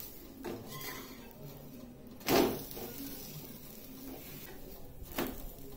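Spatula working under an adai dosa on a hot dosa tawa and flipping it over, with one short, loud impact about two seconds in and a softer knock near the end.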